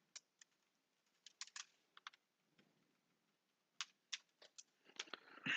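Faint computer keyboard typing: scattered single keystrokes with pauses between them, a few quicker ones near the end.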